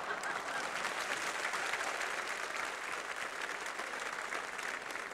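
Studio audience applauding steadily, a dense mass of many hands clapping, in reaction to a comedy punchline.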